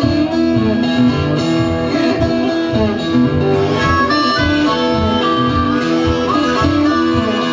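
Acoustic blues: a slide guitar played flat on the lap and an acoustic guitar, with a harmonica holding long notes and a sliding guitar note about six seconds in.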